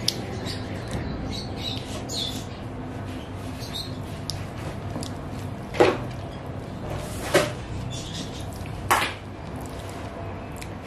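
Fingers mixing rice and mashed vegetables on a plate, with faint squishing over a steady low hum. An animal calls out three times, short and loud, about a second and a half apart, in the middle of the stretch.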